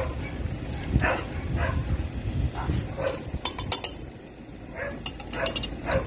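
A dog barking repeatedly in short calls, with a brief run of clinks about three and a half seconds in.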